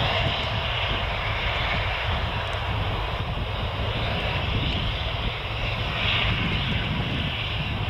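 Four Rolls-Royce RB211-524D turbofans of a Boeing 747-200 freighter running at low ground power: a steady rumble with a hiss above it, swelling slightly about six seconds in.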